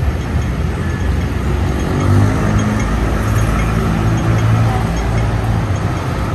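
Street traffic close by: motor vehicle engines running, with the loudest pass about two seconds in.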